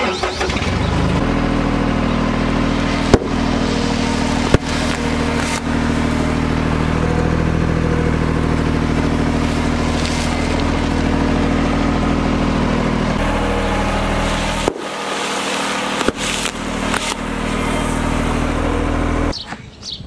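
Road roller's diesel engine running steadily as its steel drum rolls over bags of chocolate cereal, with a few sharp cracks in the first few seconds as the bags burst under the drum.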